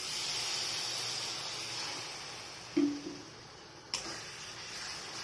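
Water poured into a hot kadai of frying onion-tomato masala, hissing and sizzling hard at first and dying down over a few seconds. A short low tone stands out about three seconds in, and a sharp knock follows, typical of the spatula striking the pan.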